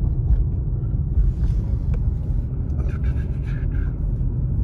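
Steady low road rumble of a car driving slowly, tyre and engine noise heard from inside the cabin.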